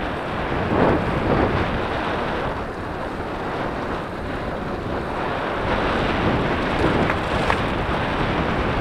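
Wind buffeting the microphone of a helmet-mounted action camera on a moving bicycle: a steady, rough noise with small swells.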